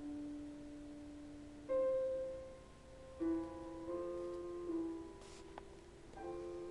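Slow, quiet piano music: sustained notes and chords, with a new chord struck about every second or two.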